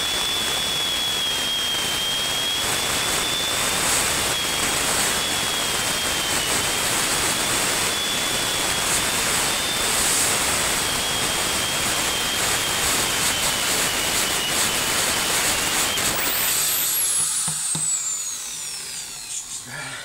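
Electric drill running steadily as it grates dried coconut flesh: a high motor whine over a coarse grinding noise. About sixteen seconds in the drill is released and winds down with a falling whine, fading away near the end.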